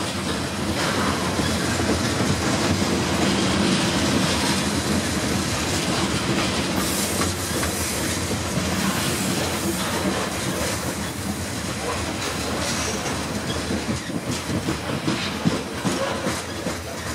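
Covered hopper cars of a freight grain train rolling past: a steady rumble of steel wheels on rail with clickety-clack over the rail joints, the clacks growing more distinct near the end.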